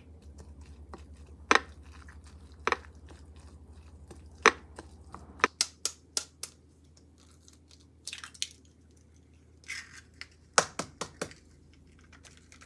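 A few sharp clicks and knocks from kitchen handling, then eggs tapped against a glass measuring cup and cracked open in short clusters of clicking and crackling shell.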